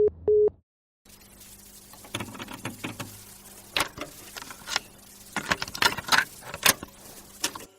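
The last two pulses of a telephone busy-signal beep, a steady single tone, cut off. After a second's pause comes quiet background noise with scattered sharp clicks and taps, thickest near the end.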